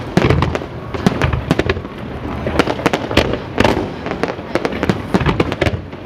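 Fireworks display going off: a dense, irregular run of bangs and crackling pops, with deeper booms rumbling underneath.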